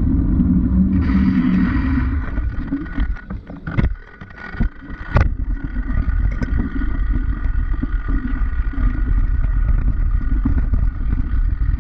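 Low, muffled rumble of wind and road noise picked up through a GoPro's sealed waterproof case while cycling. It dips about three to five seconds in, where a few sharp knocks sound, then runs steady again.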